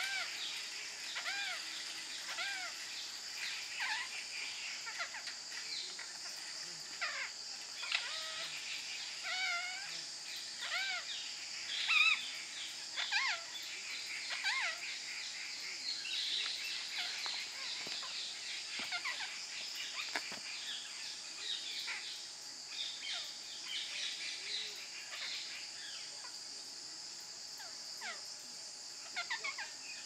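Birds calling: short, arching, pitched calls repeated about every second, thickest in the first half and thinning out later. Behind them runs a steady high-pitched insect drone.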